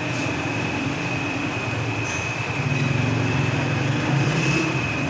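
Busy market-street noise: a steady rumble of traffic and engines, with a constant thin high tone over it.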